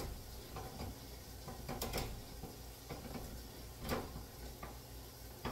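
A few sharp clicks and knocks of kitchen utensils being handled at the counter, two close together about two seconds in and another near four seconds, over a low steady hum.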